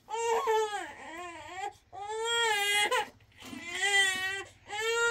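A young child crying in four wailing cries, each about a second long, with short catches of breath between them.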